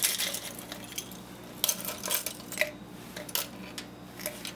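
Small circuit-board scraps with gold-plated pins clicking and clattering against each other and a plastic digital scale as they are handled, in a handful of sharp irregular clicks.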